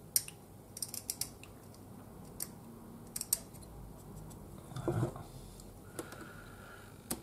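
Scattered light clicks and taps of small hard objects being handled at a hobby workbench, with a brief low sound about five seconds in.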